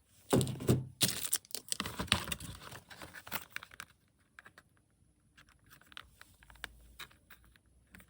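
Packaging being torn and crumpled, rustling for about three and a half seconds, then a few scattered light clicks and taps.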